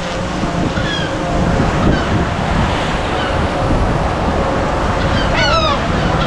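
Surf and wind noise on the microphone, with birds calling over it: short falling calls about once a second, and a louder burst of several calls near the end.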